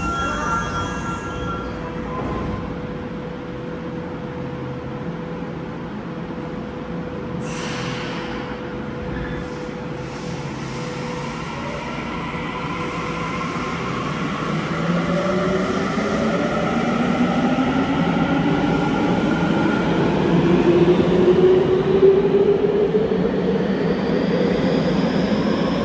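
Tokyo Metro Namboku Line subway train departing from an underground platform. A short hiss comes about seven seconds in. Then the electric traction motors whine, several tones rising in pitch together as the train accelerates and growing louder toward the end.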